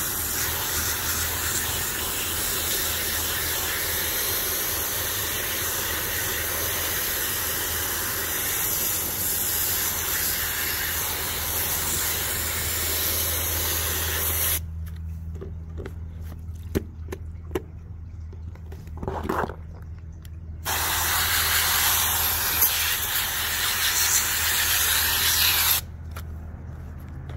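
A garden hose spray nozzle jets water onto a K&N pleated air filter, rinsing the cleaner out of it, a steady hiss of spray. It stops about halfway through for several seconds, leaving only a few light clicks, then sprays again for about five seconds and cuts off shortly before the end.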